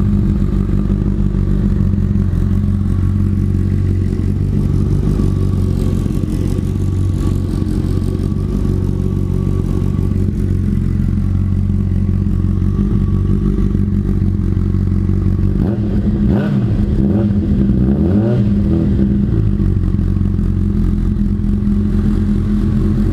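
Honda CB1000R inline-four idling through a freshly fitted Yoshimura R77 slip-on exhaust with its baffle (dB killer) not yet installed. The engine is briefly revved a couple of times about two-thirds of the way through, then settles back to idle.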